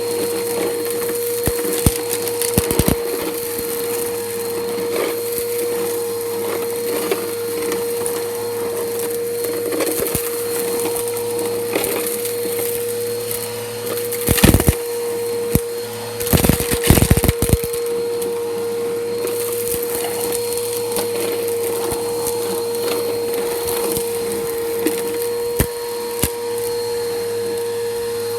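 Bissell Powerforce Helix upright vacuum running with a steady motor whine, crunching and crackling as it sucks grit and debris off concrete. Louder bursts of crunching come about halfway through and again a couple of seconds later.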